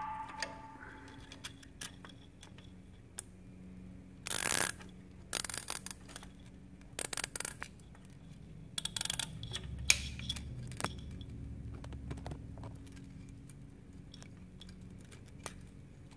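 Plastic wiring connector being handled and pushed together, as a ServoBuddy plug is fitted into a BMW S1000RR's exhaust-valve servo plug: scattered clicks and short rustling bursts of fingers, wires and plastic, including the snap of the plug latching home.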